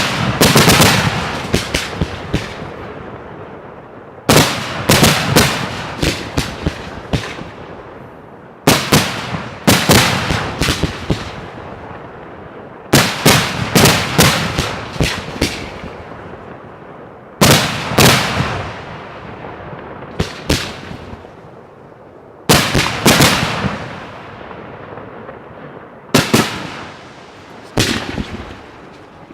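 Fireworks display at close range: a volley of bursts about every four to five seconds. Each volley opens with a loud bang, runs into several sharp cracks over a second or two, and fades into a rumble.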